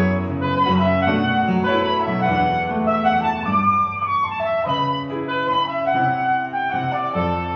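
Saxophone playing a lyrical melody in held notes over upright piano accompaniment.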